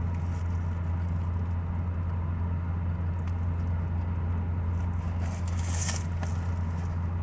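Air conditioning running as a steady low hum, with a brief rustle about six seconds in.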